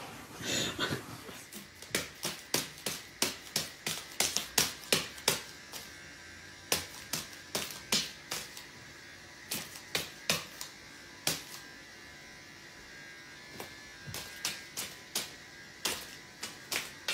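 A cat's paw batting at the side of a cardboard box and the floor beside it: a run of quick, sharp taps, two or three a second, with a pause in the middle before the taps start again.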